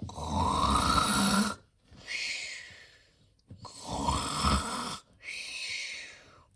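Loud snoring: two long rumbling snores on the in-breath, each followed by a quieter, airy out-breath.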